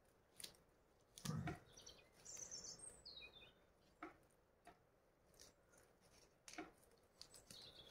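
Near quiet outdoors, with a small bird chirping a few short notes about two to three and a half seconds in, and a soft thump and a few faint clicks scattered through.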